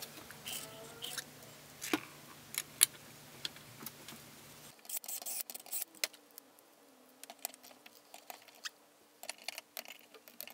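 Quiet, scattered metal clicks and taps as the oil pump's cover and bolts are handled and fitted, then a quick run of ratchet clicks from a hand torque wrench on the cover bolts near the end.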